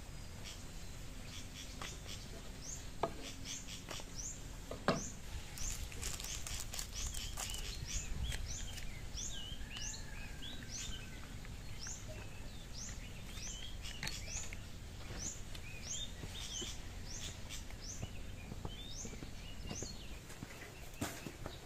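Small birds chirping over steady outdoor background noise, a quick run of short high calls repeated about twice a second. A few sharp knocks of a knife on a wooden chopping board come in the first five seconds.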